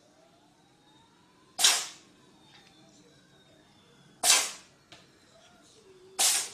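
A cat sneezing three times, sharp short sneezes about two seconds apart.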